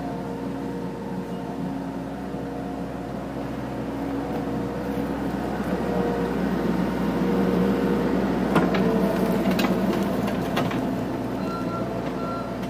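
Bobcat 735 skid-steer loader's diesel engine running steadily as the machine drives up close and then backs away, growing louder in the middle. A few sharp knocks come about two-thirds of the way in.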